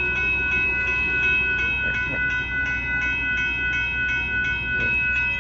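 Grade-crossing warning bell ringing steadily in even strokes, about three a second, as the crossing is activated for an approaching train, over a low rumble.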